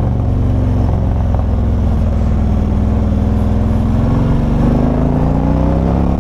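V-twin engine of a 2023 Harley-Davidson CVO motorcycle running under way, heard from the saddle. Its engine note rises gently near the end as the bike speeds up.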